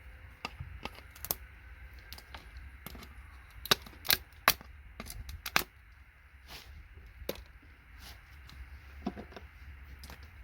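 Irregular sharp clicks and knocks of small hard objects being handled, with a group of louder knocks about four to five and a half seconds in.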